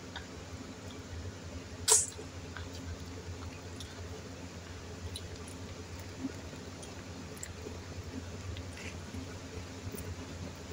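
Soft wet chewing and small clicks of eating, with one sharp clink of a metal utensil against a plate about two seconds in, over a low steady hum.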